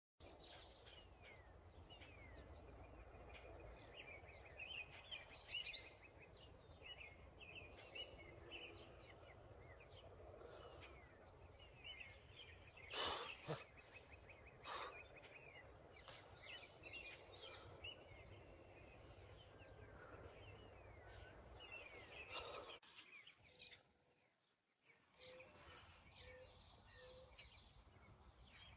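Faint birdsong in open country: several small birds chirping and calling over a quiet outdoor background, with a louder rapid trill about five seconds in.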